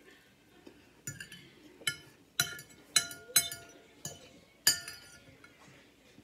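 Cutlery clinking against tableware during a meal: about six sharp clinks spread over a few seconds, a couple of them ringing on briefly.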